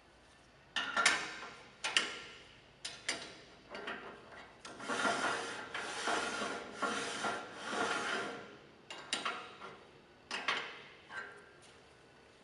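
Tailstock of a Powermatic 45 wood lathe being slid by hand along the lathe bed and back: several sharp metal clunks, then a scraping rub for about four seconds, then a few more clunks.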